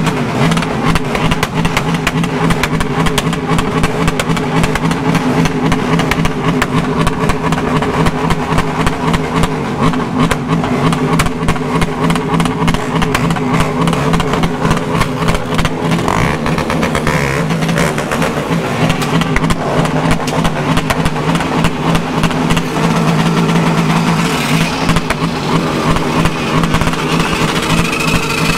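Many motorcycles idling and revving together in a crowd, with one close engine running steadily underneath.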